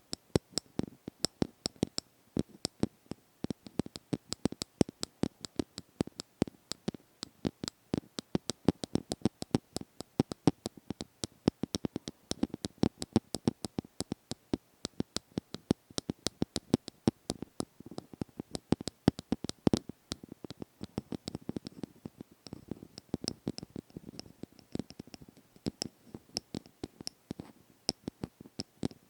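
ASMR tapping: fast, light taps several a second in an uneven rhythm, each short and crisp.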